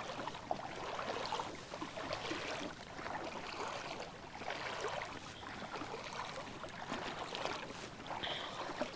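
Footsteps wading through shallow lake water: irregular sloshing and splashing around the legs.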